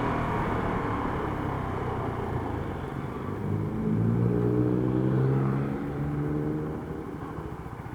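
Stock exhaust of a CFMoto 300SR's single-cylinder engine under riding: the engine note climbs in pitch and gets louder as it accelerates about three seconds in, drops with a gear change near six seconds, then eases off near the end.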